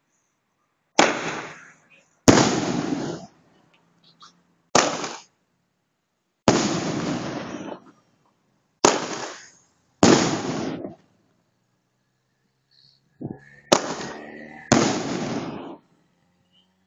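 A fireworks cake (multi-shot box) on the ground firing shot after shot: about eight loud bangs, each trailing off over about a second, at uneven gaps of one to two and a half seconds.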